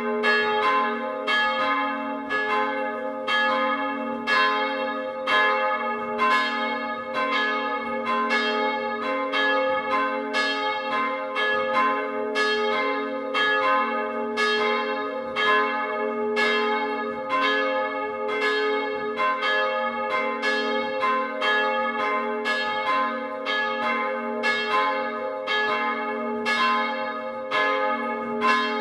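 Full peal of two late-17th-century bronze church bells, swung automatically in a timber roof truss and recorded close up. Their strokes come steadily one after another, each new stroke ringing over the hum of the last.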